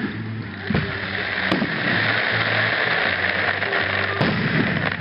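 Fireworks display: aerial shells bursting with a few sharp bangs, the clearest about a second and a half in and near the end, over a steady dense hiss, with music playing underneath.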